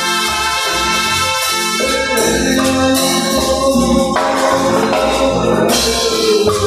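Keyboard synthesizer music from the Caustic app, a brass-like patch playing held notes and chords that change every second or two over a low bass line.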